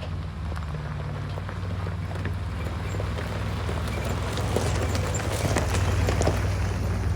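Willys Jeep engine running as it drives, a steady low drone under rough rattling and crackling, slowly growing louder, with wind on the microphone.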